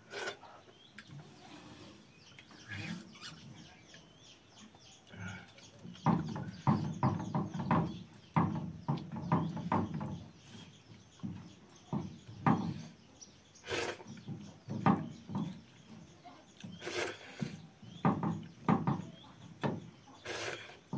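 Close-up sounds of a man eating watered rice by hand, with hens clucking. Bursts of chewing and lip-smacking come in quick succession through most of the stretch.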